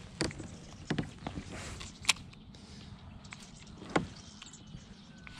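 A few separate sharp clicks and knocks, about four in five seconds, from fishing gear being handled in a kayak, over a faint steady hiss.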